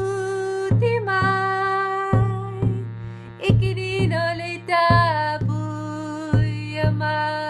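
Shruti box holding a steady low drone, with a woman singing long wordless notes over it and a drum struck at a slow pulse.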